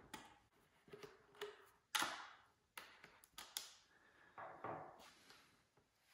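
Faint taps, clicks and light knocks of hands handling a foam RC jet model's fuselage and a hinged panel, the sharpest knock about two seconds in.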